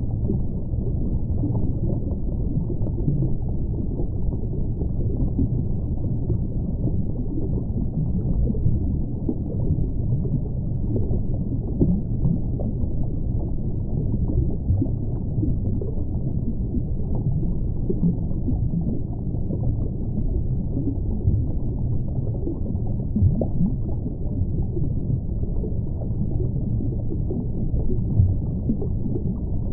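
Muffled underwater water ambience: a steady low rumble with small irregular gurgles.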